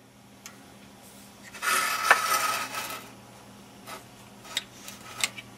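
Plastic toy record player being handled: its housing scrapes across a wooden tabletop for about a second and a half as it is turned, then a few light plastic clicks near the end.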